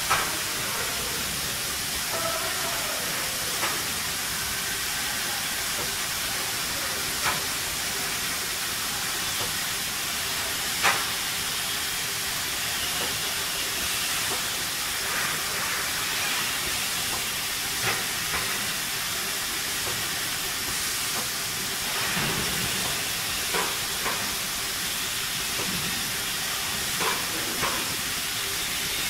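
Machinery noise of an automated car body shop around industrial robots: a steady hiss, broken by a few short sharp clicks and clanks several seconds apart.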